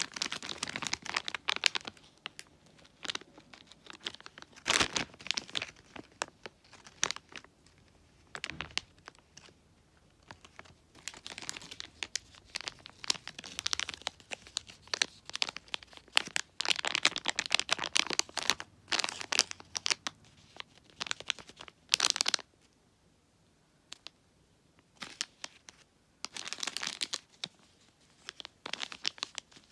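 Clear plastic sachets of small squishy toys crinkling as they are handled, in irregular bursts with short quiet gaps.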